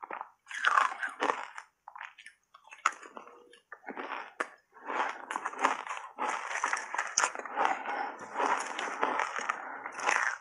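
Close-miked crunching and chewing of a mouthful of shaved ice coated in matcha powder, with a spoon digging through the ice in the bowl. Irregular crackly crunches, sparser about two to four seconds in, then dense and steady from about five seconds on.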